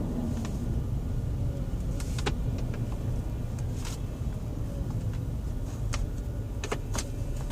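2013 VW Touareg climate-control flap motor ticking: sharp, irregular clicks over the steady low hum of the running car.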